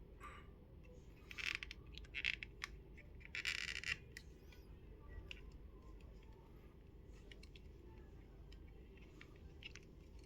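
Plastic housing of a Nokia N70 mobile phone being pried and worked at by hand. There are three short scrapes in the first four seconds, then scattered faint clicks.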